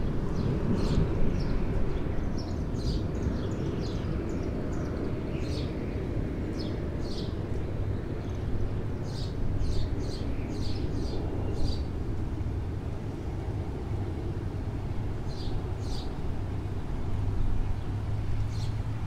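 Outdoor ambience: a steady low rumble with many short, high chirps of small birds scattered over it, thickest in the first twelve seconds and again briefly later on.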